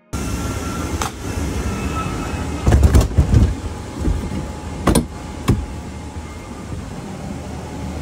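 Steady rumbling hiss of airport ramp noise, broken by several knocks and thumps, the loudest a quick cluster about three seconds in.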